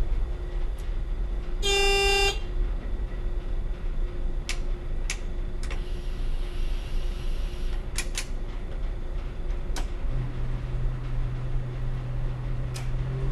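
Diesel Y-train railcar running, heard from its driver's cab: a steady low rumble with a short horn toot about two seconds in and scattered sharp clicks. A steady low hum joins about ten seconds in.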